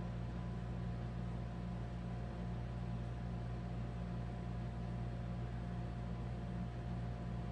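A steady low mechanical hum with a faint steady whine over it and a light hiss, unchanging throughout.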